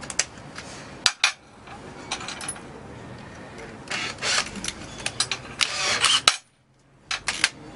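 Keyless chucks of two Makita 18V cordless hammer drills being turned by hand to change drill bits: sharp clicks and metal clinks, with two short bursts of chuck ratcheting in the second half.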